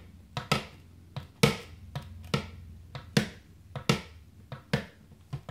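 Plastic toy horse's hooves tapped on a hard tabletop in a galloping clip-clop rhythm: sharp taps, mostly in pairs, about one pair a second.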